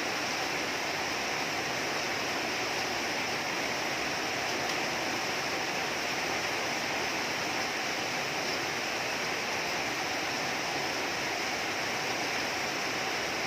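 Heavy rain falling steadily, an even, unbroken hiss with no breaks or separate events.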